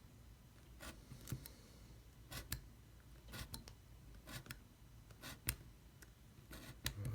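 X-Acto craft knife blade cutting through the paper parts of a paper model: faint, irregular ticks and short scrapes as the blade cuts in and is drawn along, roughly one or two a second.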